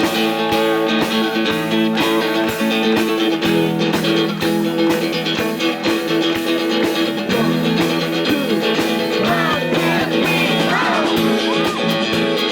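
Live rock band playing the instrumental opening of a song: electric guitar chords over a steady beat.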